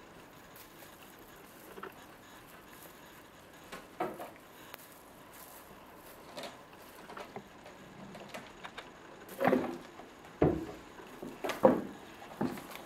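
Bengal kittens pouncing, landing and scrambling on a cat tree as they bat at a feather wand toy: scattered soft thumps and scuffles, louder and more frequent near the end, with one deep thump among them.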